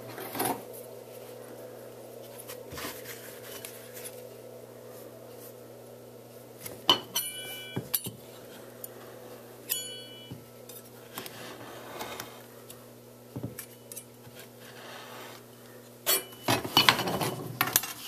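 A steel ruler and a half-moon leather head knife clinking and tapping on a work table, with a few short ringing metal clinks. Near the end comes a denser burst of handling and scraping as the sewn leather is trimmed and the offcut pulled away.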